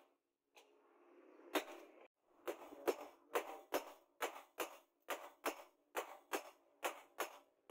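Hand hammer striking red-hot leaf-spring steel on a steel post anvil: a single blow about a second and a half in, then a steady run of blows about two a second, each with a short metallic ring.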